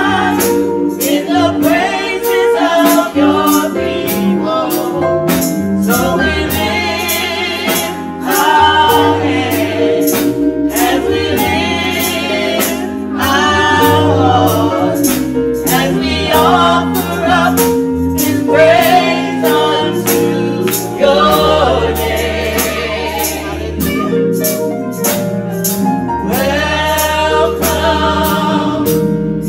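Gospel choir singing, accompanied by held instrumental chords and a steady beat of about two strikes a second.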